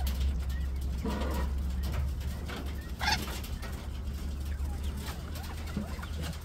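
Quail calling in a pen: a short call about a second in and a sharper, higher call about three seconds in, over a steady low hum.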